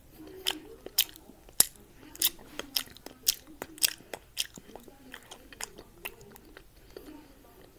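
A person chewing gum close to the microphone, with wet smacking clicks of the mouth about twice a second, loud at first and softer after about four seconds.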